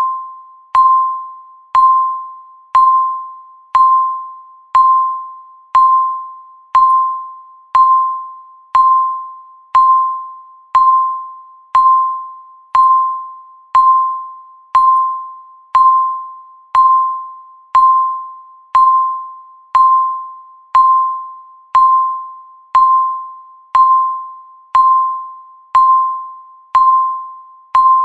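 Countdown timer beep marking each passing second: one short electronic tone, struck sharply and quickly fading, about once a second.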